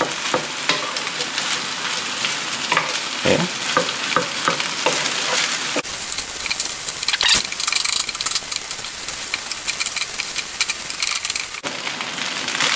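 Fried rice and egg sizzling in a hot frying pan, stirred and scraped with a wooden spatula in many short strokes. The sizzle turns brighter for several seconds in the middle.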